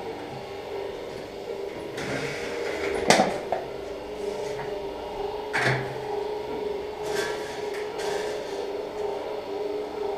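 Steady hum of operating-room equipment, with a few sharp clicks of metal surgical instruments being handled, once about three seconds in and again near six seconds.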